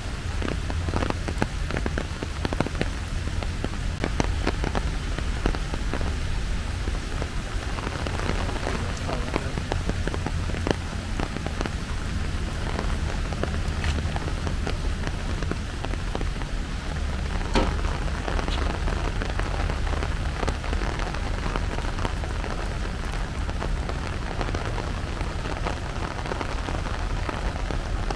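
Steady rain falling, with many sharp individual drop hits over an even hiss and a constant low rumble underneath.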